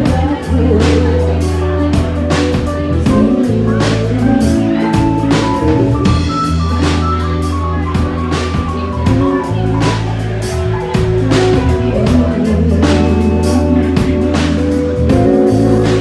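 A live band playing a blues-rock song: drum kit hits over held bass notes, with guitar.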